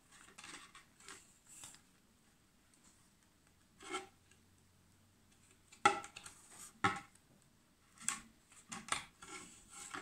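Hand-sewing through a thin plastic bottle: thick thread rubbing as it is drawn through punched holes, with scattered scrapes and sharp clicks of the plastic being handled, the loudest click about six seconds in.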